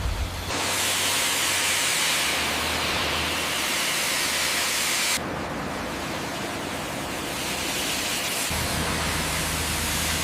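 Steady hissing noise that starts sharply about half a second in, then turns duller and quieter about five seconds in.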